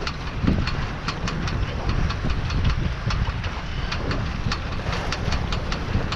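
Steady rapid ticking from somewhere on an O'Day 20 sailboat under sail, about four clicks a second, over the rush of wind and water. It is the unexplained knocking noise the sailor has been trying to track down and has not fixed.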